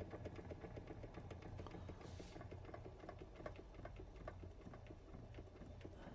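Doll 387/3 model steam engine running on steam: a faint, rapid, even ticking from the little engine's moving parts over a low steady hum, with a brief hiss about two seconds in.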